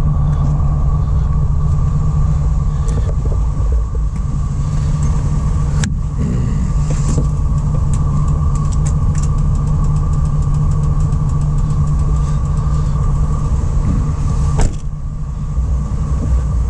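2004 GMC Savana 3500's 6.0-litre V8 idling steadily, with a sharp click about six seconds in and another near the end.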